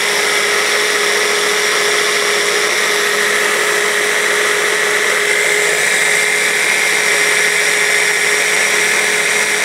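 Small hand blender fitted with a mini chopper bowl, running steadily and loud as it purees a thick parsley and walnut pesto. Its motor holds one steady whine with no change in speed.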